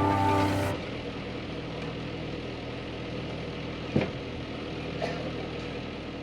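Skid steer engine idling steadily, with two short knocks about four and five seconds in. The closing music cuts off under a second in.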